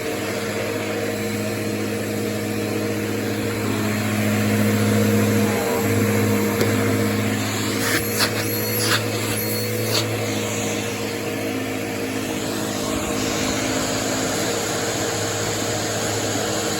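Bissell PowerForce Helix Turbo bagless upright vacuum running steadily on carpet, its motor giving a constant hum, with a few short clicks and squeaks about eight to ten seconds in.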